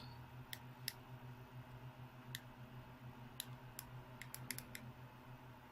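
Faint, sharp clicks of a small remote control and phone being handled while the remote is paired with the alarm app, about ten of them, bunched closer together in the second half, over a low steady hum.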